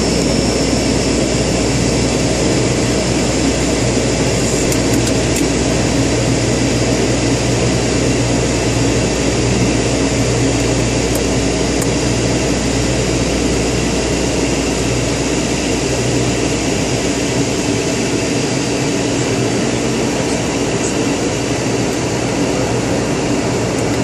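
de Havilland Canada Dash 8-200's twin turboprop engines and propellers droning steadily on the landing approach, heard from inside the cockpit: a low humming tone over a constant airflow hiss, the lowest part of the hum easing slightly about three-quarters of the way through.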